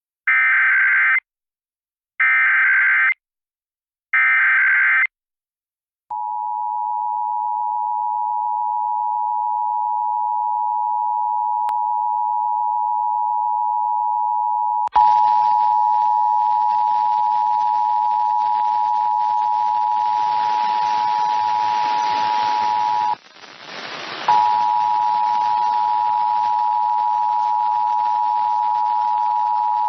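Emergency Alert System SAME header: three short buzzy data bursts about a second apart. Then the EAS two-tone attention signal comes in as a steady, loud tone. About halfway through a hiss comes in under it, and the tone breaks off for about a second near the end before resuming.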